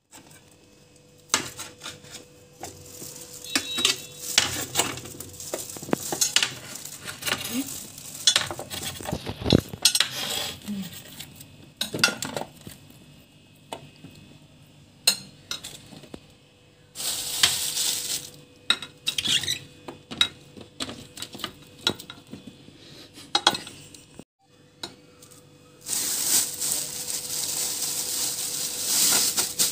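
Thin plastic food bags crinkling and rustling as cut squash cubes are handled and packed, with many small clicks and knocks of the pieces and a glass dish. The crinkling is loudest in a stretch a little past the middle and again over the last few seconds.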